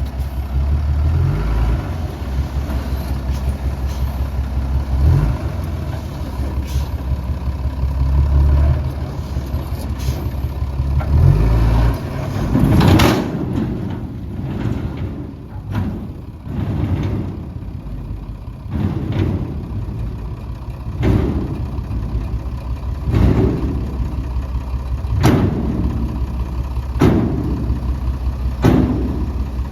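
Heavy diesel earthmoving machinery running under load. For about the first twelve seconds the engine drones steadily. After that, loud knocks or clatter come roughly every two seconds over the running engine.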